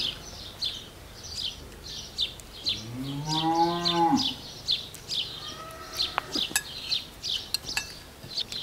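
A cow moos once, about three seconds in: a single call of over a second that rises and falls in pitch. Rapid high chirps, likely small birds, repeat throughout, with a few light clinks of spoons on plates.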